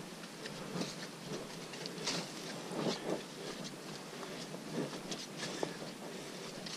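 Footsteps of hikers walking on a muddy, leaf-littered trail: irregular soft steps and scuffs over a steady background hiss.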